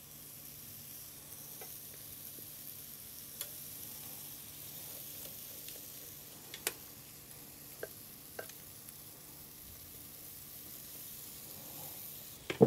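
Waffle batter sizzling quietly on the hot plates of a waffle iron, with a few light taps and scrapes of a silicone spatula against a glass jug as the batter is portioned out, and a louder knock at the very end.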